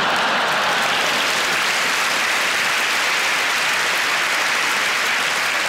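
A large theatre audience applauding: steady, dense clapping that holds at a loud, even level.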